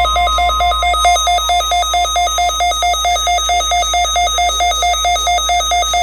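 Weather radio receiver's alert alarm beeping rapidly, about five electronic beeps a second, set off by the NOAA Weather Radio 1050 Hz warning alarm tone, which sounds steadily and faintly beneath it. The beeping is the receiver's response to the weekly tone-alert test.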